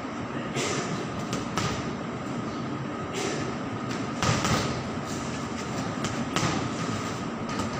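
Boxing gloves smacking a hanging heavy bag, several punches a second or two apart, over a steady background rumble.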